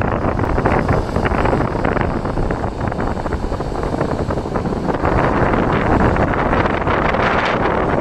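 Wind buffeting the microphone over the steady rush of small surf breaking on a sandy beach, growing louder about five seconds in.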